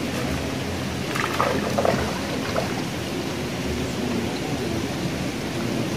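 Steady rushing background noise with an irregular low rumble, and a few brief faint sounds between about one and two and a half seconds in.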